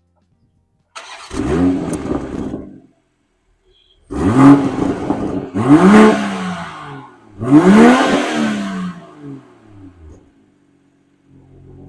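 BMW M240i's B58 3.0-litre turbocharged inline-six revving: a short burst about a second in, then three sharp revs, each rising and falling in pitch, with moments of silence between them. It settles to a steady idle near the end.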